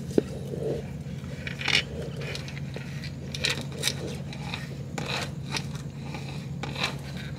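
Hand-lever grease gun being pumped to grease a sway bar end link's fitting: a handful of separate metallic clicks and scrapes from the lever and coupler, over a steady low hum.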